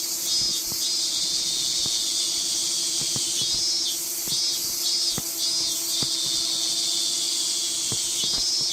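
Dense, shrill insect chorus with a pulsing rhythm about twice a second, over a steady low hum.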